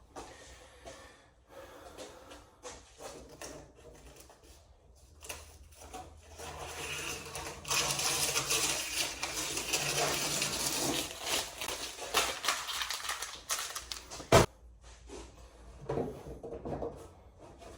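Handling noise from work on a car fender panel and its painter's-tape template: a long stretch of rubbing and scraping in the middle, and one sharp knock near the end.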